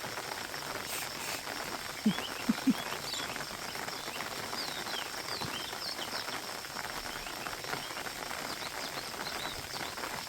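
Outdoor ambience of many small birds chirping over a steady background hiss, with three short, low sounds close together about two seconds in.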